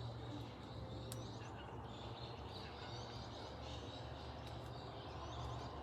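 Faint garden ambience: a few birds chirping now and then over a low steady hum.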